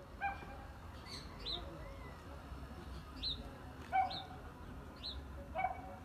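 Small birds chirping outdoors: short, high chirps every second or so, with a few lower calls among them.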